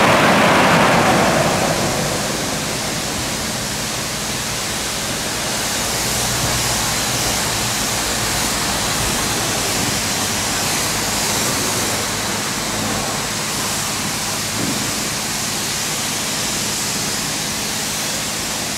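Drying blowers of a Ceccato Hydrus Tech rollover car wash running, a steady rush of air that is loudest for the first second or two and then levels off.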